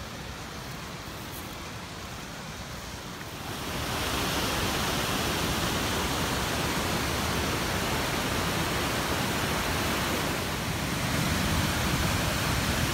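Steady rushing of a mountain waterfall, a continuous noise of falling water that gets louder and fuller about three and a half seconds in.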